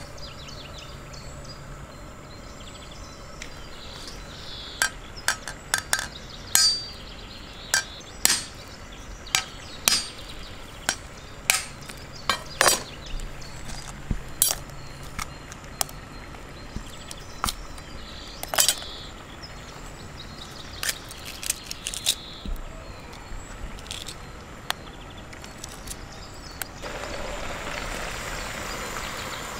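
Sharp, irregular taps and cracks as the thick, hard shell of an ostrich egg is chipped open at the top. Near the end a steady sizzle starts as the egg runs into the hot pan.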